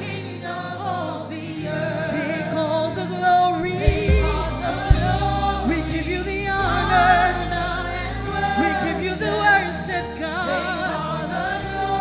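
Live gospel worship song: a lead singer and choir sing sustained, wavering lines over band accompaniment. Deep bass notes and a couple of sharp drum hits come in about four seconds in.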